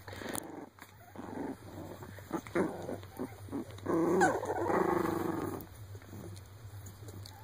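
Young Shar Pei puppies vocalizing: a few short grunts and squeaks, then a longer pitched cry lasting over a second, about four seconds in.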